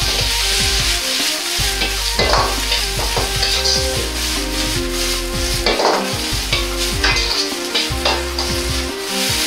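Cabbage sizzling in a hot wok while a metal ladle stirs and tosses it, with repeated sharp scrapes and clatters of ladle on wok, over background music.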